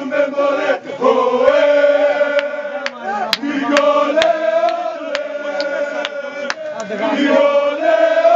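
A group of football supporters, mostly men, chanting together in a sustained sung chant. A few sharp cracks cut through the middle.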